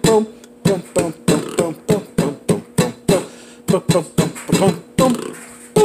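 Claw hammer pounding nuts wrapped in folded paper on a countertop to crush them into small pieces: a fast run of sharp blows, about three a second, with a short pause around three seconds in.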